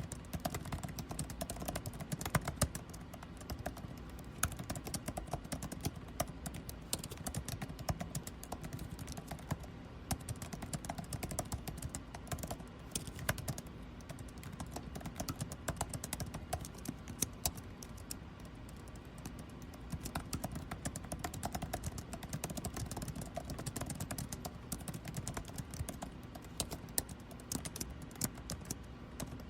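Fast, irregular typing on a computer keyboard, keys clicking continuously, over the steady hum of air conditioning.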